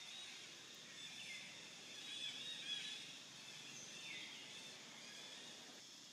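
Faint forest ambience: birds singing short warbling phrases that swoop down in pitch every second or two, over a steady high hiss.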